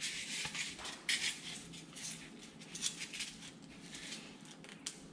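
Faint scraping, rustling and small clicks of hands gripping and straining at small glued test panels, a wooden block bonded to a panel, to try to pull them apart; the glue bond holds.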